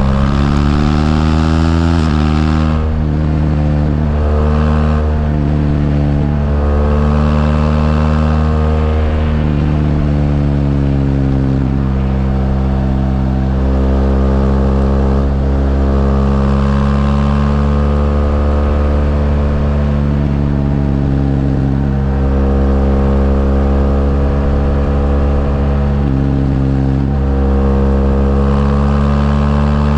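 BMW R1200GS LC's liquid-cooled boxer twin engine under way, its pitch climbing under throttle and dropping sharply at gear changes several times.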